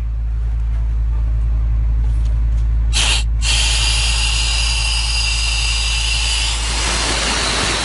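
Steady hiss of oxygen flowing from a firefighter's mask held to a smoke-affected cat's face. It is faint at first, comes on strongly about three seconds in, briefly drops, then hisses steadily until near the end, over a constant low rumble.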